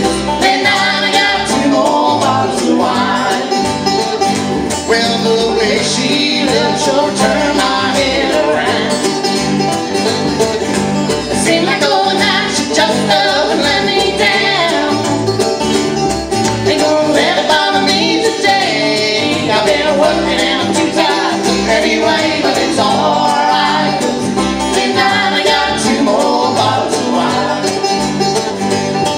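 Live acoustic country band playing on banjo, acoustic guitar and upright bass.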